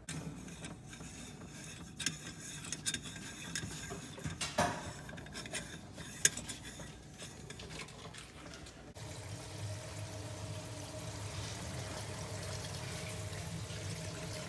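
Plumbing hardware handled under a kitchen sink: scattered sharp metallic clinks and knocks of tools and fittings, one louder than the rest about six seconds in. From about nine seconds in, a steady low hum takes over.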